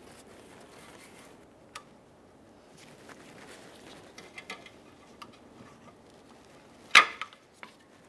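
Snap ring pliers working a steel set ring over the splined end of an intermediate shaft: faint metallic ticks and handling noise, then one sharp metal click about seven seconds in and a smaller click just after.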